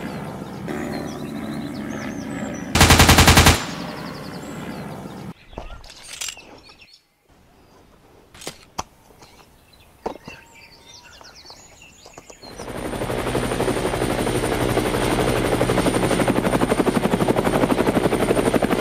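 A short, very loud burst of automatic gunfire about three seconds in, then a few scattered sharp cracks. From about twelve seconds a steady, fast-fluttering aircraft drone with a high whine sets in, like a helicopter.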